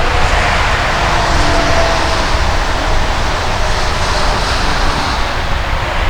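DB Class 425 electric multiple unit running along the line: a steady rolling rumble with faint whining tones from its drive.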